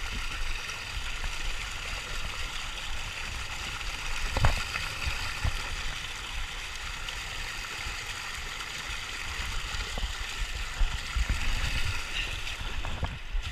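Water of a small waterfall rushing and splashing steadily, with a few dull knocks, the clearest about four and a half seconds in.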